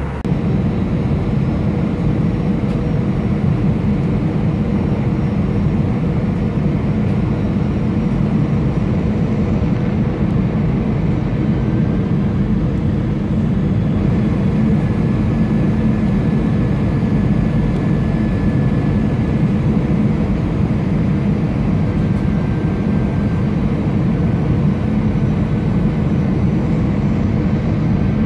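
Steady low drone of an Airbus A320 in flight, heard from inside the passenger cabin: engine and airflow noise with no change in pitch or level.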